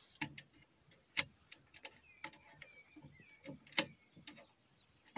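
Irregular sharp metallic clicks and taps as a scope mount is unscrewed and worked loose from a crossbow's rail, the loudest about a second in with a brief high ring.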